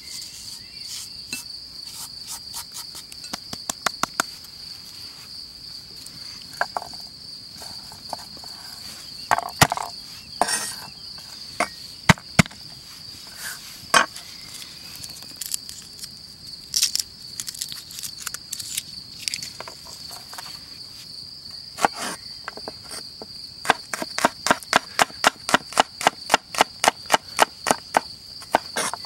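Steel cleaver knocking on a wooden cutting board: a few hard single knocks, then near the end a quick even run of chops, about four a second, as a garlic clove is chopped. Behind it, a steady high chirring of crickets.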